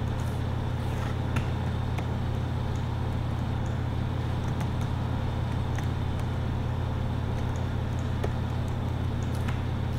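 Steady low hum of background room noise, with a few faint clicks of a computer mouse scattered through.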